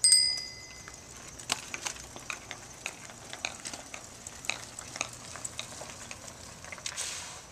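A small handlebar bicycle bell dings once, ringing out over about a second. Then come scattered, irregular faint clicks and crackles as the small bikes roll off over rough asphalt.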